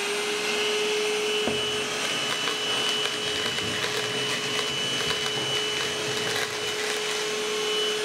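Novete handheld wet-and-dry vacuum running at a steady pitch with an even motor whine while sucking up Cheerios from a tabletop. Scattered small clicks come as the cereal pieces are drawn in, with one knock about a second and a half in.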